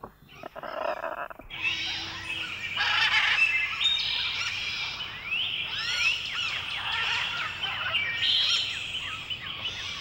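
Many birds chirping and whistling at once: a dense chorus of short, overlapping rising and falling whistles that thickens about a second and a half in after a few scattered calls.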